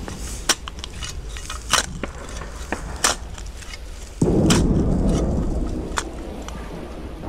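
Scattered sharp cracks and pops over a low rumble. About four seconds in, a deep rumble swells up suddenly, then slowly fades.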